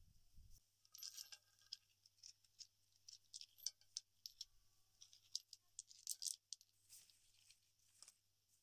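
Soft low thud as a flat stone slab is set down on dirt, then a run of light, irregular clicks and taps as small stones are knocked together by hand, some with a faint ring.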